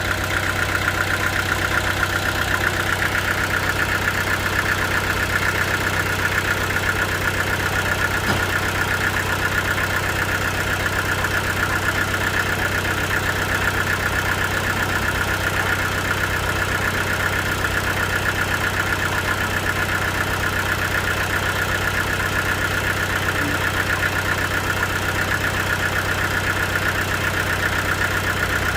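Sawmill machinery running steadily at a constant level, an even mechanical drone with a fine rapid rhythm.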